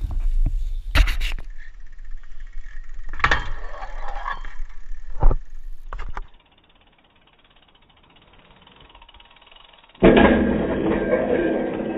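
BMX bike on rough concrete: tyre rumble and wind on a body-mounted camera, with several sharp knocks and clunks of the bike landing and hitting the ground. It goes nearly quiet for a few seconds, then a sudden loud, ringing metallic scrape and rattle starts as the bike meets a low steel rail.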